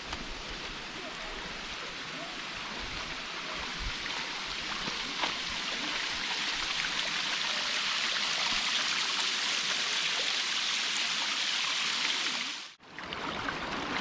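Stream water flowing steadily, growing a little louder, then cutting out abruptly for a moment near the end.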